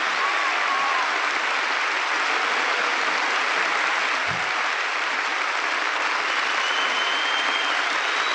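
Large concert-hall audience applauding steadily, with a few faint high-pitched tones over the clapping.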